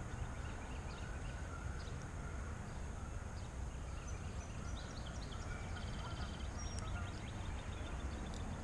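Outdoor ambience: a steady low rumble with faint, scattered bird chirps and short calls.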